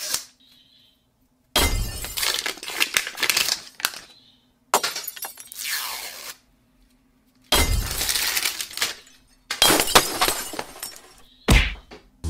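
Thin plastic wrapping being peeled and crinkled off a Mini Brands capsule ball, in four or five crinkling bursts of a second or two each, separated by dead silence.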